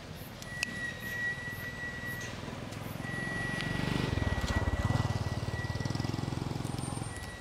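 A motor vehicle's engine going by: a low, rapidly pulsing drone that swells about halfway through and fades near the end.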